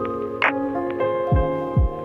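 Background music: held keyboard chords over a beat of deep kick drums and sharp claps.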